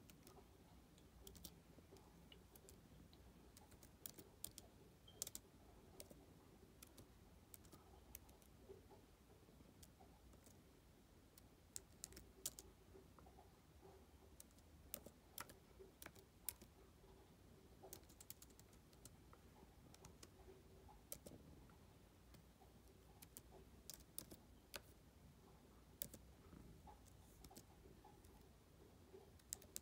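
Faint, irregular keystrokes on a computer keyboard: a few taps at a time with pauses between.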